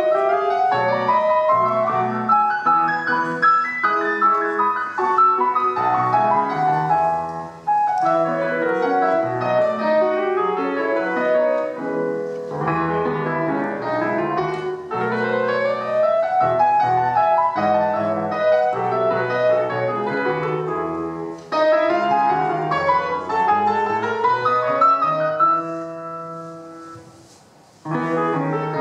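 Solo grand piano playing an Argentine folk-dance piece, with quick running melodic lines over a steady bass. Near the end the playing dies away for a moment, then starts up again.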